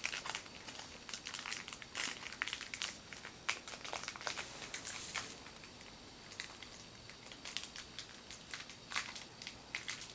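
Plastic toy packaging crinkling and crackling as it is handled and pried open, in many short irregular rustles.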